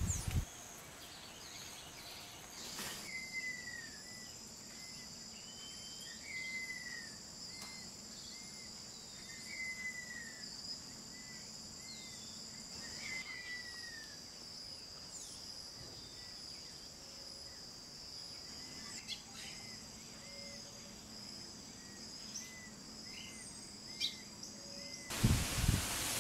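Outdoor ambience of insects buzzing steadily at two high pitches, with a bird repeating short downward-slurred calls about once a second. A loud rush of noise takes over near the end.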